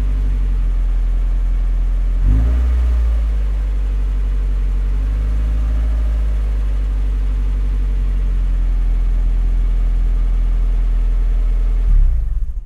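Mazda Miata NB four-cylinder engine idling through a newly installed Cobalt dual exhaust, with a short rev about two seconds in and another brief blip near the end before the sound cuts off.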